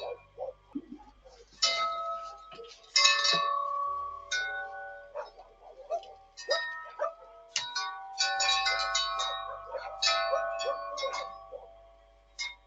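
Metal wind chimes jangling in irregular bursts. Each burst strikes several tones at the same few fixed pitches, and they ring on. There is a dense run of strikes from about 8 to 11 seconds in.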